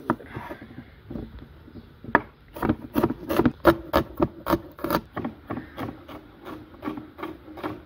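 Knife chopping a red onion on a wooden cutting board: a quick run of sharp taps as the blade cuts through and strikes the board, about three to four a second, starting about two seconds in.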